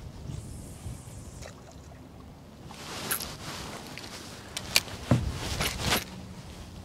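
Steady low wind and water noise around a small fishing boat, with a few light clicks about three seconds in and a short run of clicks and a dull knock around five to six seconds in.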